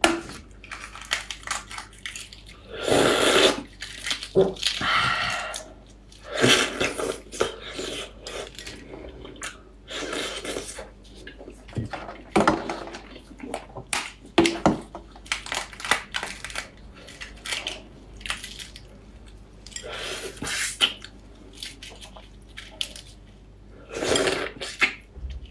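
Close-up eating sounds of spicy marinated fertilised eggs (balut): gloved hands lifting the eggs out of the sauce and peeling them, with wet squishing and chewing. They come as short noisy bursts a few seconds apart.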